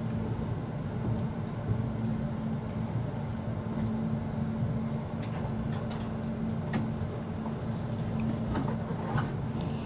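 Cabin running noise of a Kintetsu 12200 series limited-express railcar: a steady low rumble with a held low hum, and scattered light clicks and creaks.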